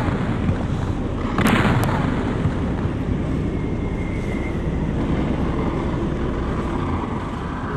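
A cannon fires once from the boat about a second and a half in: a sharp blast that dies away over about half a second. Under it runs the steady rumble of the moving boat and wind on the microphone.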